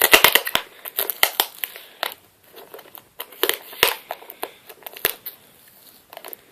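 Packaging being pulled and torn at by hand: packing tape and box wrapping crinkling and crackling in irregular bursts, busiest in the first second or so, then in short flurries. The tape is being picked at by hand because there is no blade to cut it.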